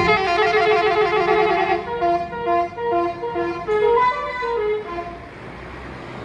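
Basuri telolet horn on a bus playing a fast melody of short stepped notes. The notes thin out after about two seconds and stop near five seconds, leaving steady road noise.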